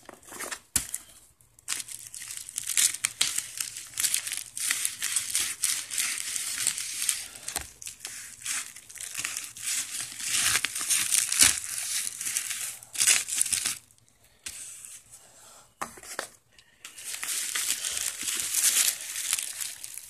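Black plastic packaging wrap crinkling and tearing as it is cut open with a knife and pulled apart by hand, with two short quiet pauses a little past the middle.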